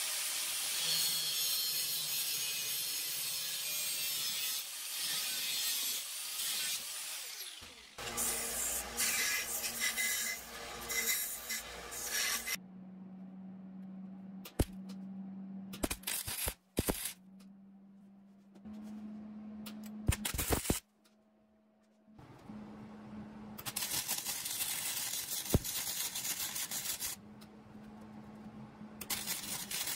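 An angle grinder cutting and grinding steel brackets for the first twelve seconds or so, then quieter stretches with a low hum and sharp clicks, and a MIG welder's crackle for several seconds near the end.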